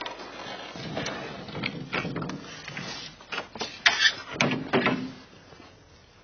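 Irregular knocks and clunks, with several sharp ones close together about four to five seconds in.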